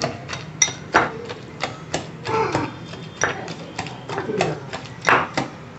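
Metal wire whisk clinking and tapping against a glass bowl while mashing soaked bread, in irregular clicks about two a second.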